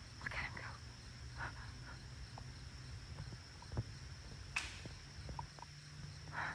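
Faint woodland ambience: a steady high-pitched whine, like insects, under scattered soft rustles and small ticks of leaves or handling.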